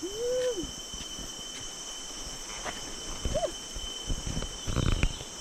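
Rainforest insects keep up a steady high whine, under two short voice-like "ooh" calls, one at the start and one about three seconds in. A brief clatter of noise near the end is the loudest sound.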